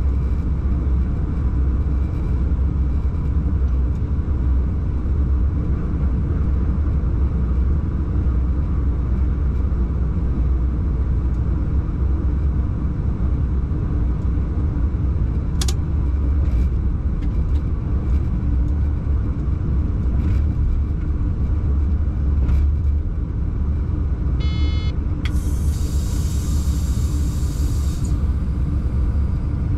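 Steady low rumble of a freight locomotive under way, heard from inside the cab. Near the end there is a short buzz, then a hiss that lasts about three seconds.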